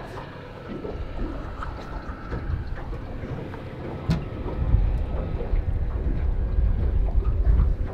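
Wind rumbling on the microphone on an open boat, stronger in the second half, with a single sharp click about four seconds in.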